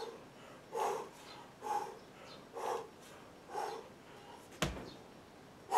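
A man's short, forceful exhalations, about one a second, in rhythm with kettlebell figure-eight swings. There is a single thump about four and a half seconds in.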